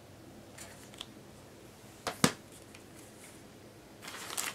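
Two sharp clacks close together about two seconds in, as a plastic DVD case is set down. Near the end, paper mailing envelopes rustle as the stack is handled.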